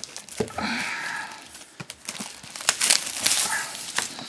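Packaging on a sealed trading-card box crinkling and tearing as it is opened, a string of irregular crackles and rustles.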